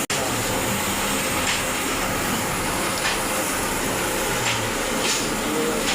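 Electric arc welder crackling steadily as a bead is laid, a continuous hiss with a few faint pops.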